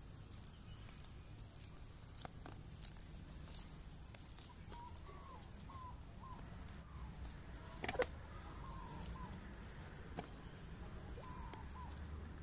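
Small knife cutting through fresh coriander stems over a wet banana leaf, light crisp cuts at irregular intervals, with one sharper knock about eight seconds in. Faint bird chirps come in short groups in the background from about halfway on.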